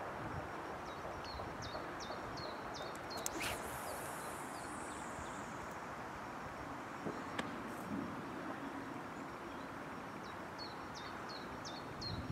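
A fishing rod cast: a sharp swish about three and a half seconds in, then line running off the reel as a high hiss that falls slowly in pitch over two to three seconds. A bird sings a short run of quick, high repeated notes twice, near the start and near the end, over a steady background hiss.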